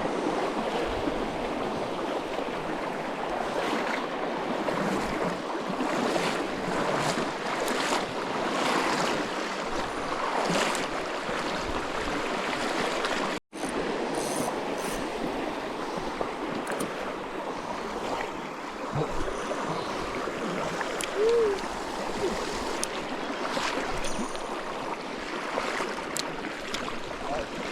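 Upper Goulburn River water running steadily, an even rushing and burbling. It breaks off completely for a moment about halfway through. A short squeak stands out about three-quarters of the way through.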